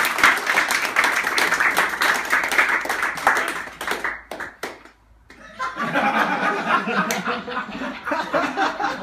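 A small group of people clapping and laughing. The clapping stops about five seconds in, and laughter and voices follow.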